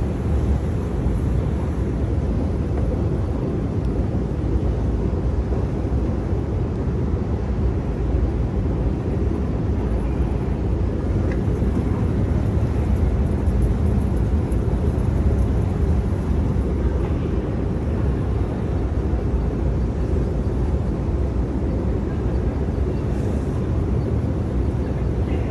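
Metro station escalator running during a long ride down: a steady low rumble with no distinct knocks or changes.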